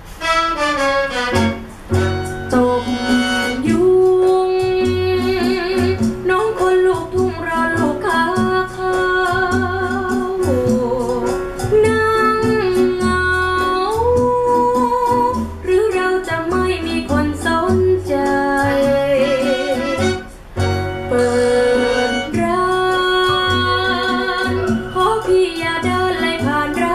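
A song played back through a pair of old Sony SS-H12 hi-fi speakers with 6-inch woofers: a melody line with vibrato over guitar and a steady, repeating bass note.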